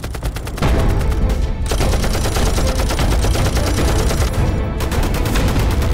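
Belt-fed mounted machine gun firing in a long, rapid, sustained stream of shots, with a dramatic film score underneath.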